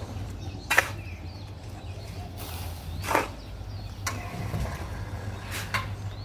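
Small improvised cement mixer running, a steady low hum with a sharp knock about every two and a half seconds.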